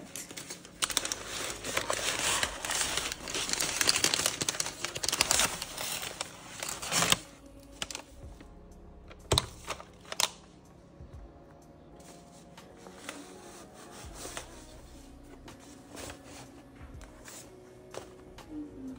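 Paper wrapping crinkling and rustling as purchased items are unwrapped by hand. Dense, loud crinkling for the first several seconds gives way to quieter, scattered rustles and small taps.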